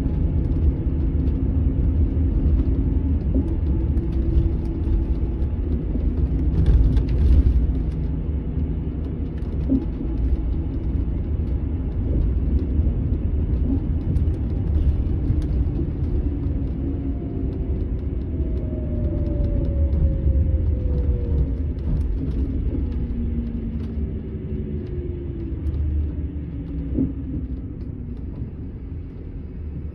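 Setra S 431 DT double-decker bus running, a steady low engine rumble with a short hiss about seven seconds in. Past the middle the engine note slides down twice, and the sound eases off toward the end.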